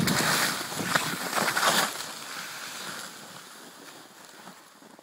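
Snow hissing under a rider sliding through deep powder, loud for about two seconds and then fading away as the rider slows to a stop.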